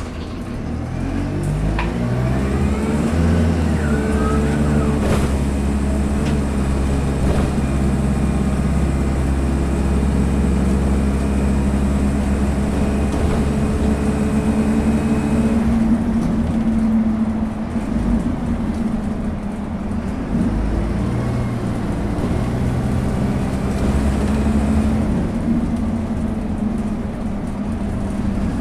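Diesel engine and Allison automatic gearbox of a Dennis Dart single-deck bus, heard from inside the saloon while the bus is under way. The engine note climbs under acceleration over the first few seconds, holds steady and high, then drops about sixteen seconds in as the bus runs on at a lower note.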